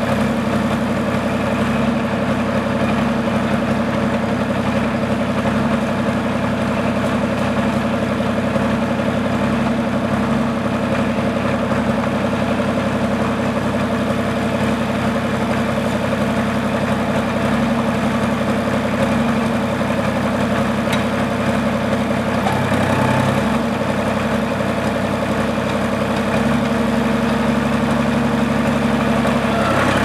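John Deere 350 crawler dozer's engine idling steadily, its note shifting slightly about two-thirds of the way through as the throttle is touched.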